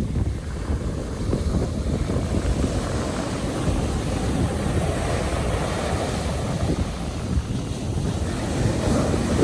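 Stormy sea surf breaking and washing, with strong wind buffeting the microphone.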